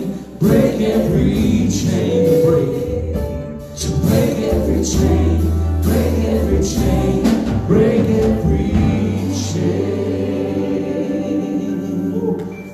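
A small vocal group of one man and three women singing a gospel worship song in harmony through microphones, backed by keyboard and drums with steady low bass notes.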